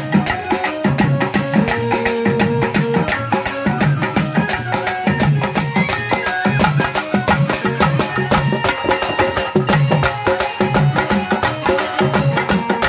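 Live pandari bhajana folk devotional music: hand drums, a double-headed barrel drum and a frame drum, struck in a fast, steady rhythm, with bright metallic strokes over them.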